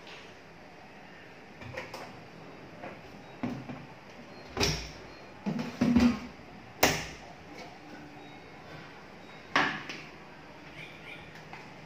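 Scattered knocks and clunks of household items being handled and set down at a kitchen sink and counter, a handful of separate hits with the loudest pair close together near the middle.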